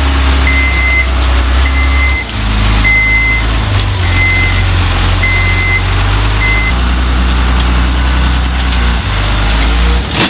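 Hyundai 740-3 wheel loader's diesel engine running under load, its pitch shifting a few times, with the backup alarm beeping about once a second as it reverses. The beeping stops about two-thirds of the way through.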